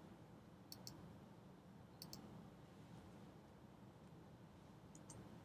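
Faint clicks of a computer mouse: three quick pairs of clicks spread over a few seconds, against near-silent room tone.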